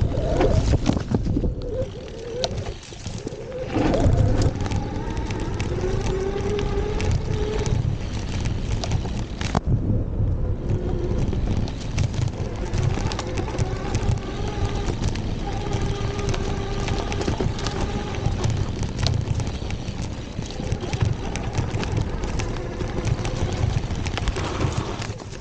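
Electric BMX hub-motor whine under a motor controller, its pitch rising and falling with speed, over the rumble and knocks of knobby tyres on a bumpy dirt trail and wind buffeting the microphone.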